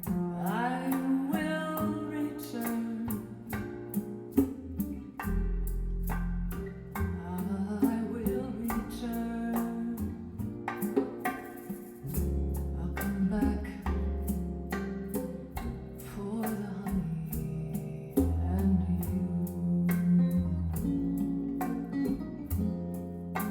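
A jazz recording with plucked guitar, deep bass notes and steady ticking percussion, played back over Thiel CS2 loudspeakers driven by a single-ended 300B tube amplifier, with a subwoofer filling in the low bass.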